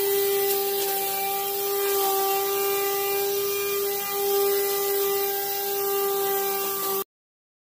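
Krisbow corded electric string trimmer running at steady speed, a constant whine over the hiss of its nylon line cutting grass. It stops abruptly about seven seconds in.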